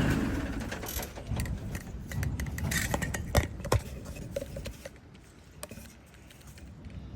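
An engine's hum dies away, followed by scattered metallic clinks and rattles, most of them between one and four seconds in.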